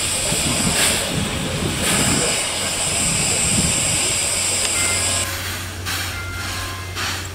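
Steam hissing steadily from the JNR Class C11 steam tank locomotive C11 207, with a steady low hum beneath. The hiss drops out briefly about a second in and stops about five seconds in, leaving the low hum.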